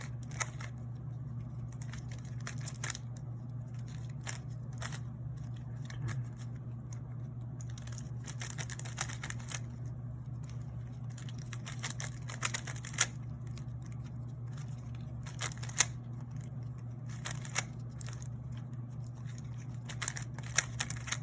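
GAN 356 Air 3x3 speed cube being turned quickly by hand in a timed solve: an irregular run of short plastic clicks and clacks as the layers turn, over a steady low hum.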